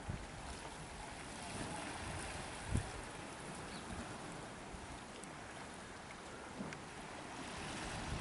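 Small sea waves washing against the rocks at the foot of a low cliff, a steady hiss that swells a little about two seconds in and again near the end. Wind on the microphone adds a few short low thumps, the loudest about three seconds in.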